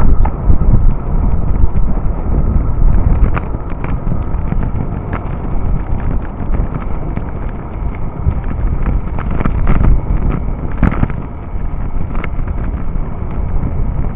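Wind buffeting the microphone of a camera carried on a moving bicycle, with steady road rumble and scattered sharp knocks and rattles from bumps in the road.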